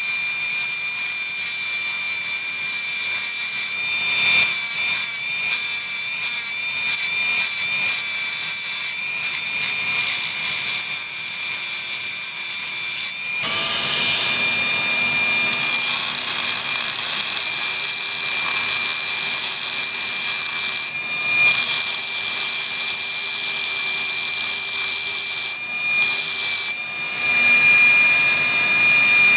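Homemade hand drill with a 555 DC motor running at high speed with a steady high whine. At first a polishing wheel rubs against a metal carabiner; a little before halfway this gives way to a rotary burr grinding iron, the rasping coming and going as the bit touches the metal.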